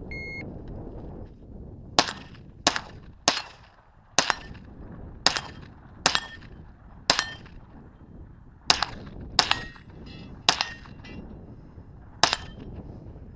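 An electronic shot timer gives a short start beep, then a shooter fires about eleven gunshots in a timed stage of target shooting. The shots come in a quick, uneven rhythm, two or three in fast succession, then short pauses.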